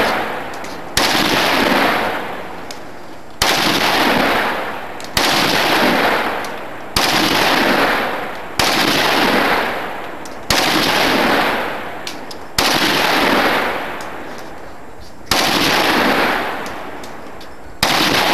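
An automatic rifle fired in single shots, about one every two seconds, nine shots in all. Each sharp crack is followed by a long ringing echo that dies away before the next shot.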